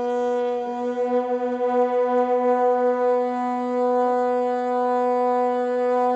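A horn blown in one long, steady note, which wavers in loudness for a couple of seconds partway through.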